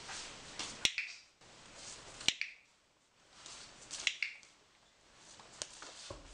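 Dog-training clicker clicking four times, at roughly one-and-a-half-second intervals.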